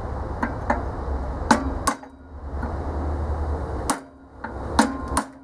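Hammer striking a steel punch set in a blower wheel's hub, about seven sharp metal-on-metal blows at uneven spacing, one with a brief ring near the end. The punch is driving out a motor shaft that is seized in the hub by rust.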